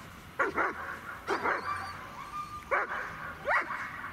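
A dog barking repeatedly, the barks coming in quick pairs about once a second or so.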